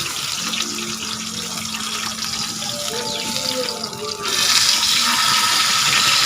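Chicken and vegetables sizzling in oil on a hot grill pan, the sizzle turning brighter and louder about four seconds in.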